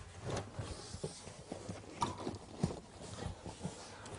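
Irregular knocks and thumps as the leather rear seat bottom cushion of a BMW E46 sedan is tugged up out of its clips, a few knocks a second.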